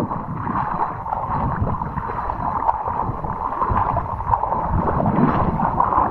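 Feet wading through shallow water, sloshing and splashing irregularly with each step.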